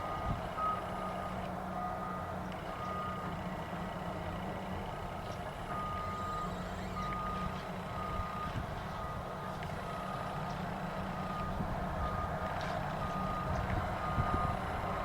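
Backup alarm on heavy construction equipment beeping steadily, about one beep a second, over the low rumble of diesel engines working.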